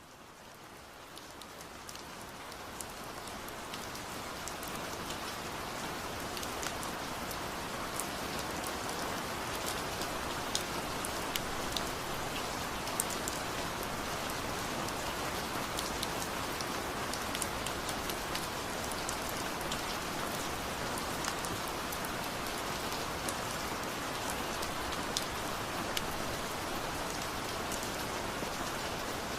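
Steady rush of falling water with scattered sharp droplet splashes, fading in over the first few seconds and then holding level.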